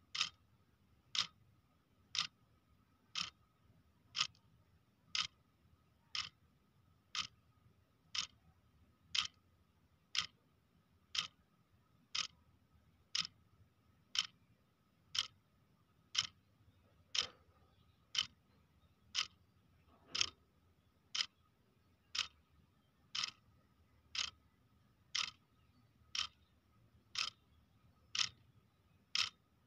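Clock ticking steadily, one sharp tick about every second, with a faint steady high tone underneath.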